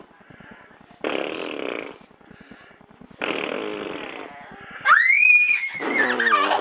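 A toddler's playful vocal noises: two breathy, raspy bursts about two seconds apart, then a high squeal that rises sharply and slides back down near the end.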